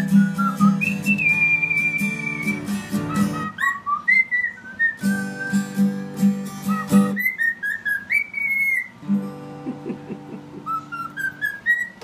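Cockatiel whistling a tune in steps and held notes, some falling and some rising, along with an acoustic guitar being picked. The guitar stops twice, about three and a half seconds in and again around seven seconds in, leaving the whistling on its own for a second or two each time.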